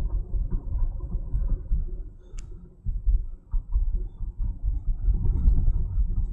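Uneven low road rumble inside a moving vehicle's cabin, rising and falling as it rolls over bumps, with a single sharp click about two and a half seconds in.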